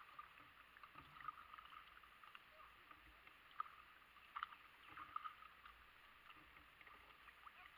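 Near silence: faint lapping and trickling of creek water around a kayak, with a few small ticks.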